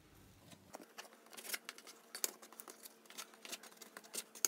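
Plastic bench scraper cutting risen yeast dough into pieces on a board: light, irregular clicks and taps starting about a second in.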